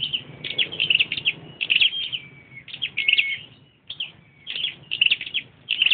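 Caged red-headed 'chim sâu' songbird singing: short, quick high-pitched phrases of chirps and brief held notes, repeated about once a second, with a short pause near the middle.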